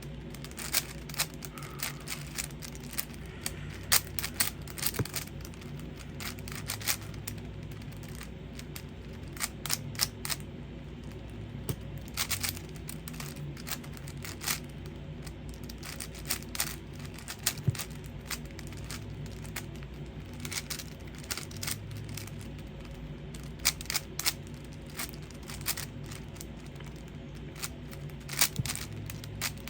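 5x5 Rubik's cube being turned quickly by hand, its layers clicking and clacking in irregular runs of snaps, during the 3x3 stage of a reduction solve.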